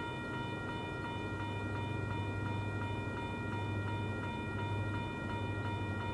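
Railroad crossing bell ringing steadily while the signals flash. Under it is the low, steady hum of an approaching diesel locomotive, which grows stronger near the end.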